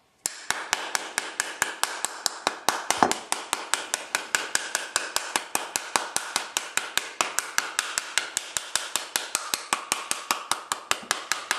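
Wooden spoon smacking the back of a halved pomegranate held upside down in the hand, a steady rapid rhythm of about five hits a second that knocks the seeds out into a bowl.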